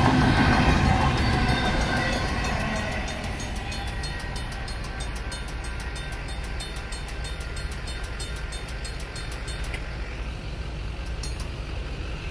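Tail end of a Union Pacific double-stack intermodal train rumbling over the crossing, fading away over the first few seconds as the last cars clear. Under it, railroad crossing bells keep ringing in rapid, even strokes: a Safetran mechanical bell that sounds rough and struggles to ring at times, and an NEG electronic bell.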